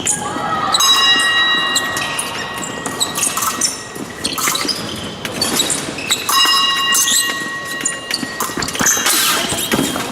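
Épée bout in progress: sharp clicks and knocks of blades and feet on the piste. Two long electronic beeps sound, one starting just after the opening and running about three seconds, another about six seconds in.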